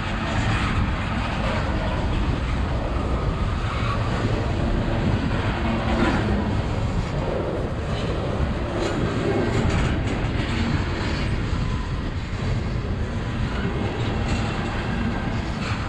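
Freight train tank cars rolling past close by: steady rumble of steel wheels on rail, with scattered clacks over the rail joints.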